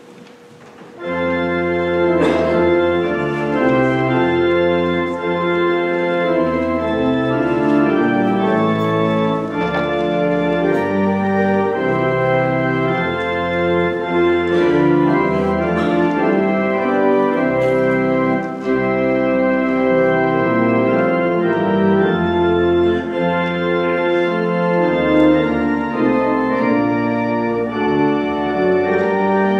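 Church organ playing loud, sustained full chords that change every second or so, coming in suddenly about a second in.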